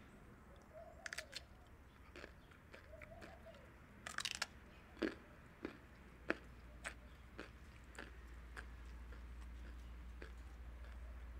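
Rabbits chewing lettuce: an irregular scatter of crisp crunches and clicks, thickest in the middle.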